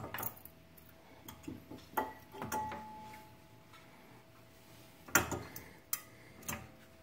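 Metal clicks and clinks as new front brake pads are slid into a Brembo-style fixed brake caliper, the steel pad backing plates knocking against the caliper. There are a handful of irregular knocks, the loudest about five seconds in, and some leave a brief metallic ring.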